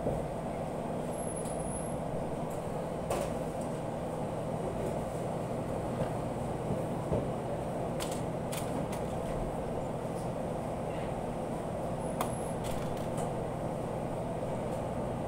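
Steady hum and whoosh of commercial kitchen machinery, with a few soft clicks as raw beef is threaded onto bamboo skewers over a steel tray.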